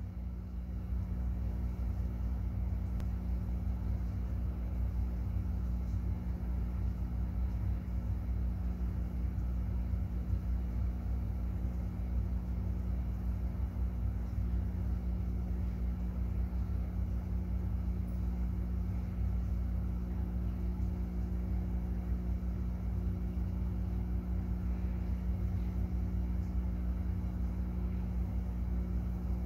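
Steady low hum with a constant rumble underneath, like a small motor running without change.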